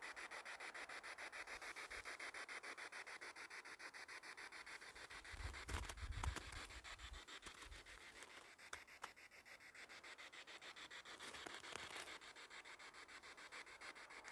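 Faint static hiss chopped into a fast, even pulse of several beats a second, the kind of sound a small electronic device gives off; a few low thumps of handling come about halfway through.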